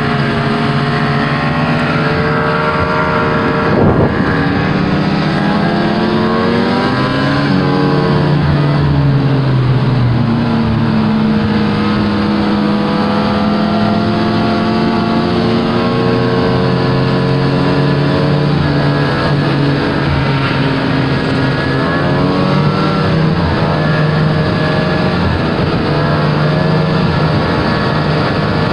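Snowmobile engine running under way on a trail, its pitch rising and falling several times as the throttle is opened and eased. A single thump about four seconds in.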